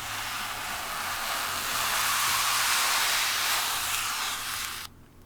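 Protective plastic film being peeled off a PC case panel: a steady hiss that swells and then cuts off suddenly near the end as the film comes free.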